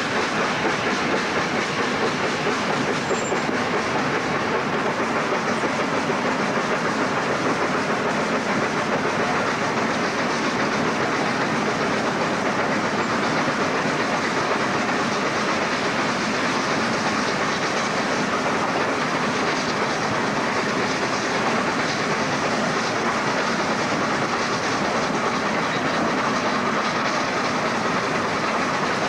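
LNER A3 Pacific 60103 Flying Scotsman, a three-cylinder 4-6-2 steam locomotive, heard from its own footplate while running at speed. It makes a steady, loud rush of wheels on rail, motion and steam that does not let up.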